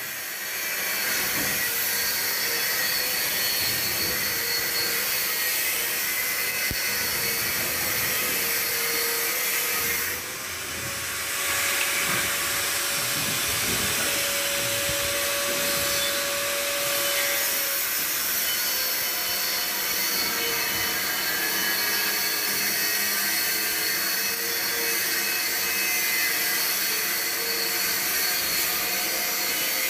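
Argon (TIG) welding arc hissing steadily, with a faint steady whine underneath. It dips briefly about ten seconds in, then carries on.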